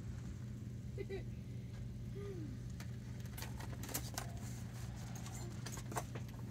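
Plastic blister packs clicking and rattling against metal pegboard hooks as they are handled and lifted off, a few short sharp clicks with the sharpest near the end, over a steady low store hum.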